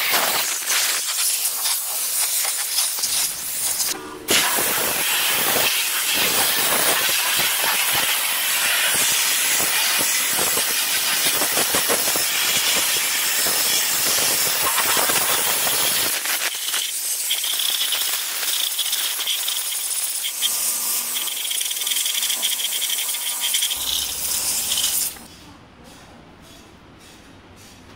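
A MONAIR steam cleaner's wand blasting high-pressure steam with a loud, steady hiss, briefly interrupted about four seconds in. The steam cuts off about 25 seconds in, leaving only faint handling clicks.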